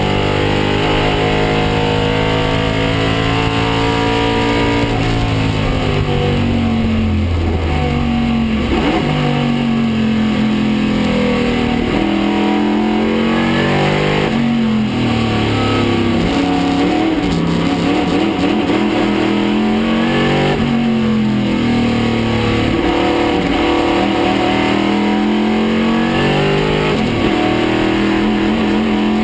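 Small-block 302 cubic-inch Chevrolet V8 of a 1969 Camaro Trans-Am race car at racing speed, heard from inside the cabin. Its pitch climbs as it accelerates up through the gears and drops away under braking and downshifts, over and over.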